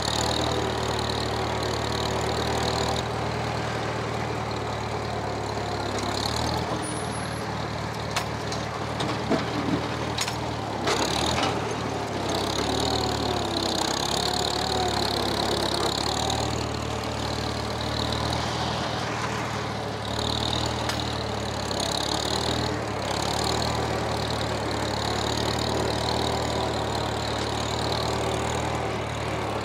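Old farm tractor engine running steadily while digging out a pond, with a few sharp knocks near the middle.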